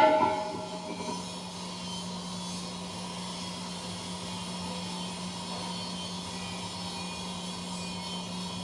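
CNC machine running with a steady hum and a constant tone. A ringing metallic clang dies away about a second in.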